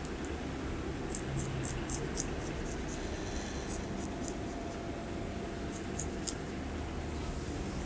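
Straight razor scraping over facial skin around the eyes in short strokes, a scattered series of crisp little scratches over a steady low room hum.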